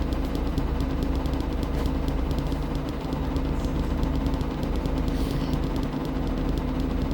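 Washing machine running, a steady motor hum with a constant tone and a fine, even ticking.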